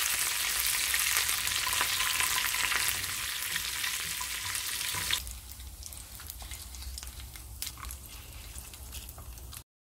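Tempering of mustard seeds, urad dal, dry red chillies and curry leaves sizzling in hot sesame oil in a non-stick pan, stirred with a wooden spatula. About five seconds in, the sizzle drops to a much quieter hiss with scattered clicks, and the sound cuts off just before the end.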